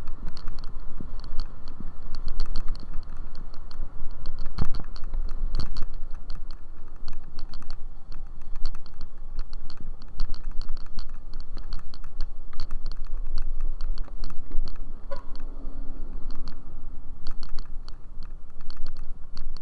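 Riding a scooter: wind rumbling on the microphone, with rapid, irregular clicking and rattling throughout.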